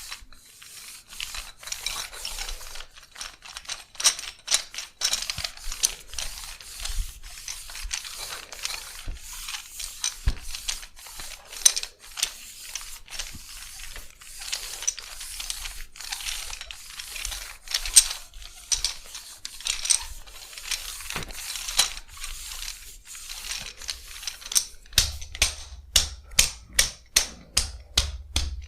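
Massage hand sounds: irregular sharp slaps and clicks of hands on skin and hair. About three-quarters of the way through they turn into fast, even percussive tapping, about three strikes a second, with dull thumps under it.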